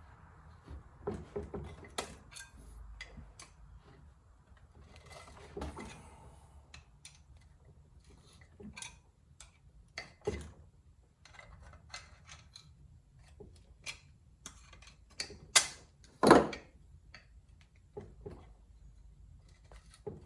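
Metal hand tools being handled and set down: scattered clicks and clinks, with two louder knocks about three-quarters of the way through.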